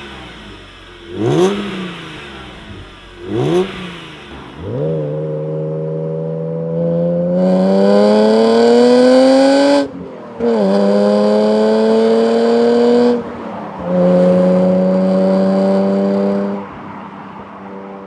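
A BMW E36 M3's straight-six is revved through its exhaust. It starts with two quick throttle blips. The revs are then held and climb slowly for about five seconds before the throttle snaps shut. The revs are held steady twice more, then drop away near the end.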